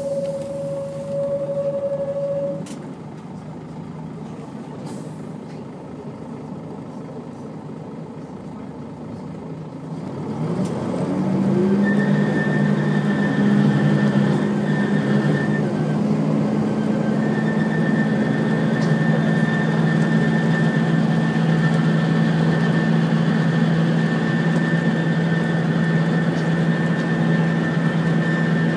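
Volvo B10BLE bus engine and ZF automatic gearbox, heard from on board. A steady whine stops after about two seconds, and the bus runs quieter for a while. About ten seconds in, the engine note climbs as the bus pulls away and settles into a loud, steady drone with a high whine over it.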